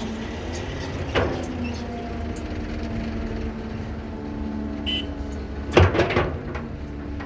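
Caterpillar 312B excavator's diesel engine running steadily, with a sharp knock about a second in and a cluster of loud knocks around six seconds in.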